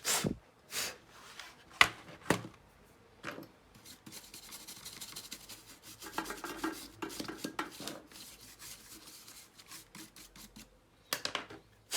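Rubbing and scraping to clean leftover old thermal paste residue off a laptop's cooling parts. A few short sharp scrapes come first, then about six seconds of continuous rubbing, then a couple more strokes near the end.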